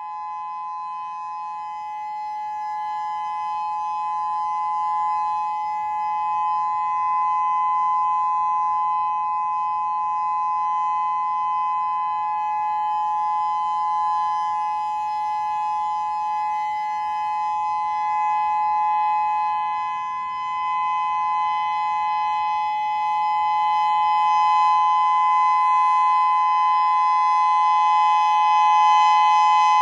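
Whelen WPS-3000 electronic outdoor warning siren sounding its full alert: a steady chord of two tones, swelling in loudness over the first few seconds and growing louder again near the end.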